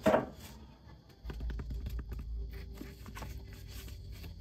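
Paper and packaging being handled: a short, loud rustle as the printed leaflets are lifted, then softer crinkles and small taps over a low rumble.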